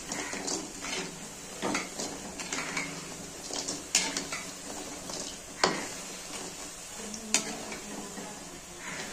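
Moong dal fritters frying in hot oil in a kadhai with a steady sizzle, while a perforated metal skimmer scrapes and clinks against the pan as they are turned and lifted out, with several sharp clinks.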